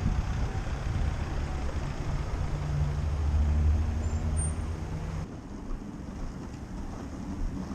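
A large road vehicle's engine running close by as a low drone that grows louder to about three and a half seconds in, then drops away suddenly a little after five seconds, over street traffic noise.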